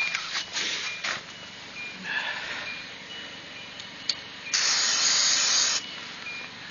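Aerosol can of white grease sprayed into a car door latch: a few short hisses, then one longer steady hiss of over a second. A faint repeating chime from the open-door car rings underneath.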